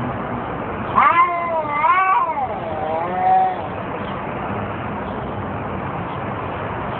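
Cats yowling in a fight: long, wavering howls that rise and fall in pitch, starting about a second in and again around three seconds, over a steady background hiss.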